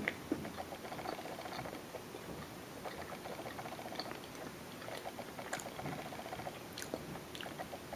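Faint chewing and mouth noises of someone eating a soft muffin: scattered small clicks and smacks.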